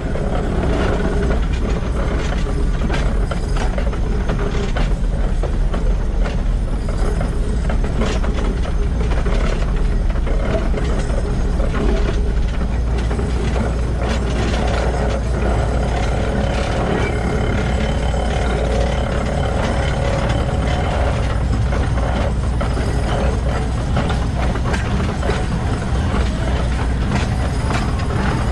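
Running gear of Shay geared steam locomotive SL-31, heard up close at the truck while the engine is moving: the bevel-gear drive and wheels clatter steadily on the rails, with many small knocks over a constant low rumble.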